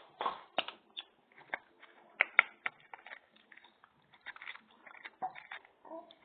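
Homemade slime of PVA glue and baking soda being mixed: irregular sticky clicks and squelches, with two sharper clicks a little over two seconds in.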